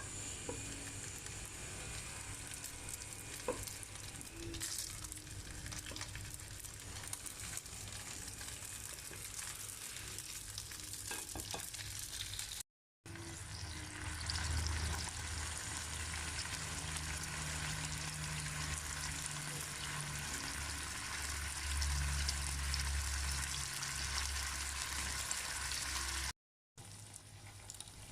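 Food sizzling and frying in a pan, a steady hiss that cuts out briefly twice. A low hum joins in over the second half.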